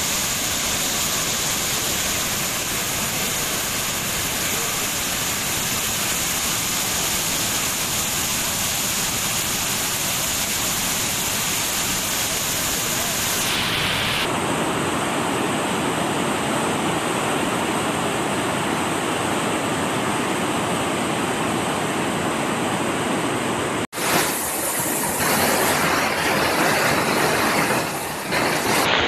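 Floodwater rushing steadily: muddy water cascading over a bridge railing into a churning, swollen stream. The sound changes abruptly about halfway through, and again after a brief drop-out later on.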